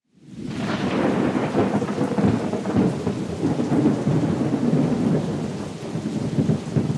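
Thunderstorm: heavy rain with continuous rumbling thunder, fading in from silence over the first second and then holding steady and loud.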